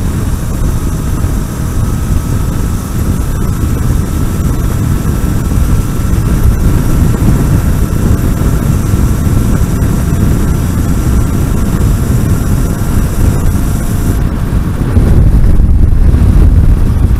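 Wind buffeting the microphone on a moving electric motorcycle, with a faint steady whine from its electric drive; the wind rumble gets louder near the end.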